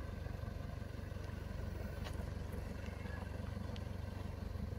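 A vehicle engine idling: a steady low rumble with fast, even pulsing that cuts off abruptly at the end.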